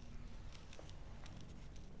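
Quiet room tone: a low steady hum with a few faint small clicks in the first half.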